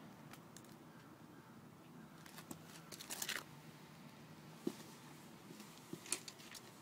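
Faint crunching and scraping as a slingshot's plastic ammo ball is dug out of an apple by hand: a cluster of short crackles around the middle, then a few single sharp clicks near the end.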